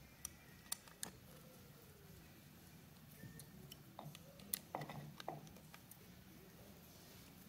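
Light metallic clicks and taps from a hex key working the interlock mechanism of a Monarch 10EE lathe apron: a few sharp ticks in the first second, then a tighter cluster about four to five and a half seconds in. A faint steady hum runs underneath.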